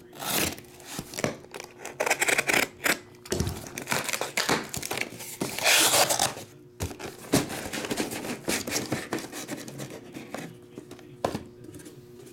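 Cardboard box being opened by hand, with its flaps pulled back and the cardboard rustling and scraping. Shrink-wrapped card boxes are then lifted out and set down with a few light knocks.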